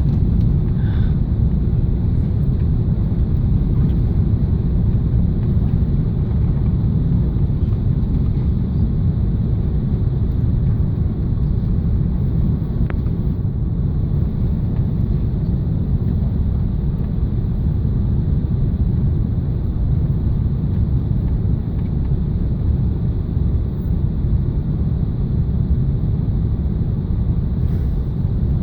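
Steady low rumble of engine and airflow noise heard inside the passenger cabin of an Airbus A380 in flight.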